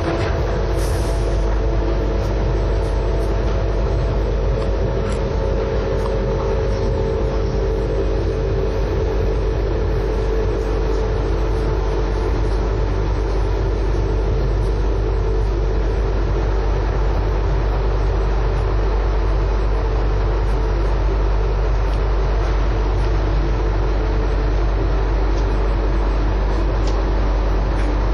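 Taipei Metro Wenhu line rubber-tyred train running along its guideway, heard from on board: a loud, steady rumble with a hum that fades somewhat after about eight seconds.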